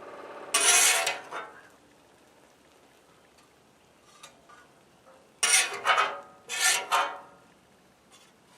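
Metal spatula scraping across a flat-top griddle, scooping fried rice: one scrape about half a second in, then two more in quick succession a little past the middle.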